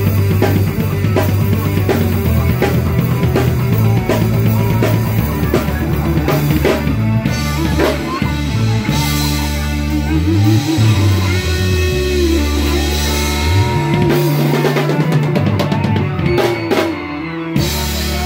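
Rock band playing live through a PA: drum kit and electric guitar with a heavy low end. The steady drumbeat drops out about seven seconds in, leaving held guitar and bass notes, and drum hits return near the end.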